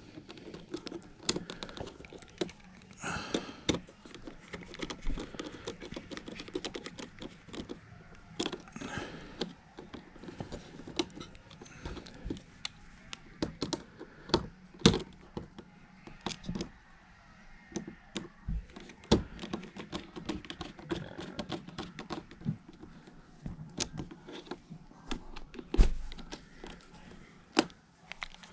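Irregular small clicks and taps of a screwdriver and plastic parts while thermostat wires are moved between terminals to correct a swapped Y and W hookup, with a sharper knock near the end.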